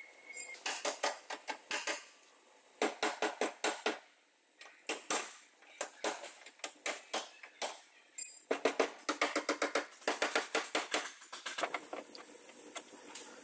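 Rapid runs of sharp clicks, about six a second, in bursts of one to three seconds with short pauses, from hand-tool work on the car. A faint steady hiss takes over near the end.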